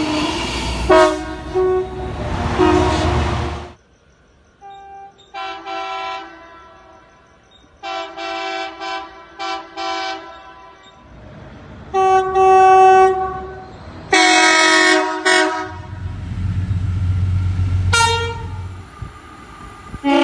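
Train horns sounding one after another in a series of separate blasts, some long and some in short bursts, several cut off abruptly. A low rumble of a passing train runs under some of them.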